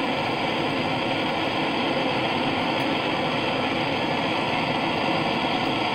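Handheld gas torch flame burning steadily with an even hiss as it heats freshly poured silver in a Delft clay mold.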